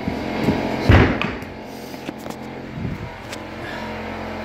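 A heavy thump about a second in, then a few lighter clicks and knocks, over a steady low hum.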